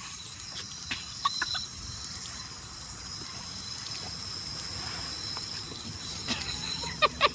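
Garden hose spraying a jet of water onto a dog and a stone patio: a steady hiss of spray. A few short, high squeaks come right at the end.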